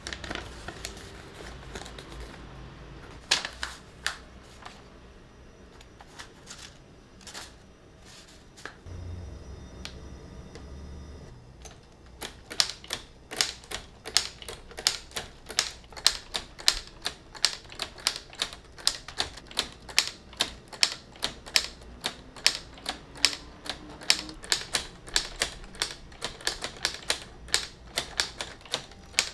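Plastic keys of a LEGO Typewriter 21327 being pressed, each stroke a sharp click. The clicks are sparse at first, then about twelve seconds in settle into steady typing at about two to three keystrokes a second.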